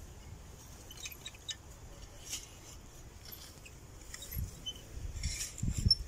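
A hand digging tool scraping and digging into loose soil and dry straw mulch to unearth potatoes, with small scrapes and rustles, then a few dull thumps near the end.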